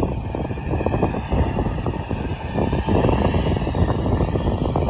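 Jet airliner's engines at takeoff power on its takeoff roll, a steady low rumble across the airfield that grows a little louder about three seconds in.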